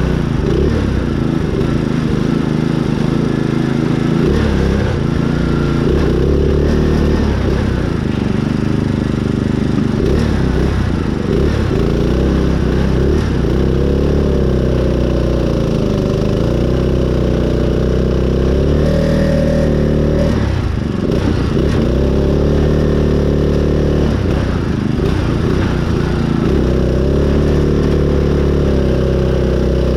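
Small engine of a custom mud-running lawn mower running hard, its pitch rising and falling as the throttle and load change, with dips about halfway through and again a few seconds later.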